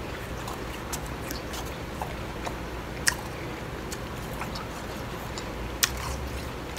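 A person chewing a spoonful of blended ice (crushed store-bought bag ice): soft crunching with scattered crisp clicks, the sharpest about three seconds in and two near the end.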